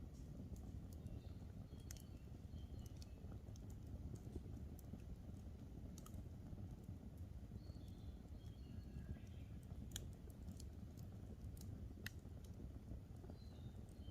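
Campfire burning with a low steady rumble and scattered sharp crackles and pops. Faint bird chirps come in a few times in the background.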